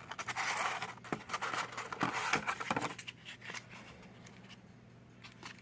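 A cardboard toy-car box being handled and opened: crackling, scraping and clicking for about three seconds, then quieter handling.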